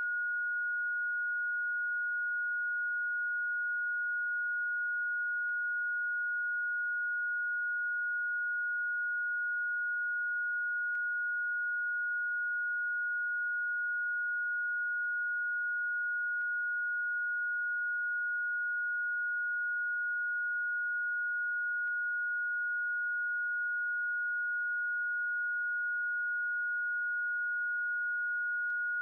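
A single electronically generated sine tone, one of the video's Rife frequencies, held at one high pitch without change.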